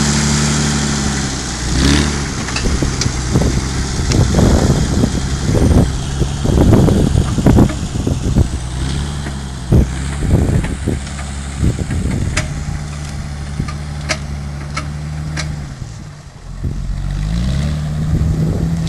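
Home-built tractor's Volvo six-cylinder engine running under load as it pulls a loaded firewood trailer, with repeated clunks and knocks as the trailer bumps over rough ground. Near the end the engine note drops, then rises again.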